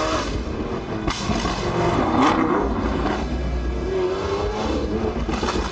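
A sports car's engine revving several times through a loud exhaust, its note rising and falling, with surges about a second in, a little after two seconds and near the end.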